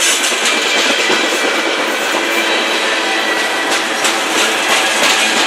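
Freight train cars (coil steel cars and tank cars) rolling past close by: a steady rattle and rumble of steel wheels on rail, with repeated clicks as the wheels cross rail joints.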